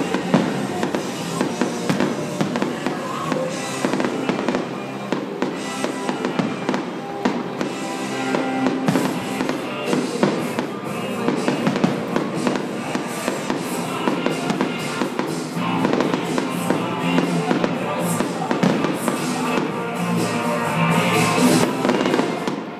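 Aerial fireworks shells bursting and crackling in a rapid, continuous series, with music playing along underneath.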